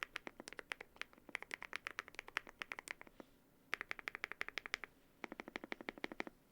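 Typing on a Yunzii AL98 mechanical keyboard with lubed Keygeek Y3X switches and PBT Cherry-profile keycaps: quick runs of keystrokes, pausing briefly about three seconds in and again after five seconds. The last run is deeper-toned.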